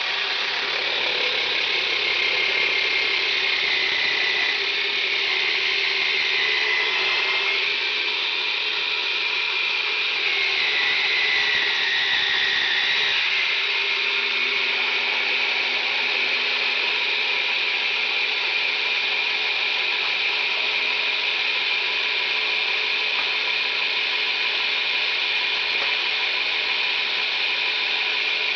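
Yonanas frozen-fruit dessert maker running with a steady motor whine, its pitch sagging several times in the first half as frozen banana and berries are pressed down the chute and churned, then holding steady.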